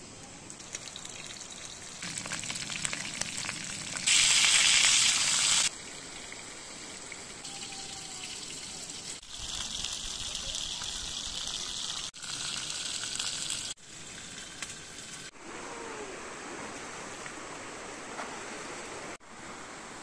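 Steady rushing of running water, changing in level at several sudden cuts, with a louder, brighter rush for about a second and a half around four seconds in. A faint steady high tone lies under it.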